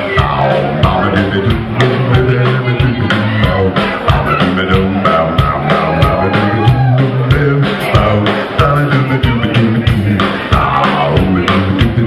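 Rock song playing, with a steady, fast drum beat over bass and guitar.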